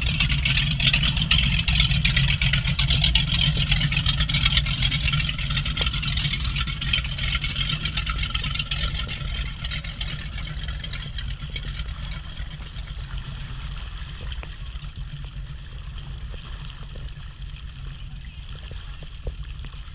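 Motorboat engine running at low speed with a steady low hum, gradually getting quieter.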